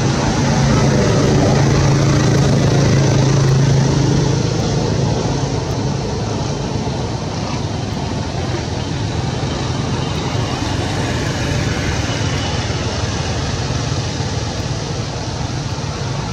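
A motor vehicle's engine running, a steady low hum that is loudest for the first four seconds or so and then fades into a steady outdoor background hiss.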